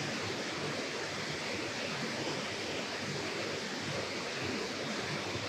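Steady rushing of water pouring over a low river dam, an even, unbroken noise.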